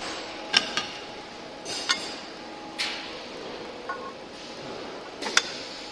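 Sharp metallic clanks, about six at irregular intervals with two close together near the end, over the steady hum of a rack column base-plate welding machine.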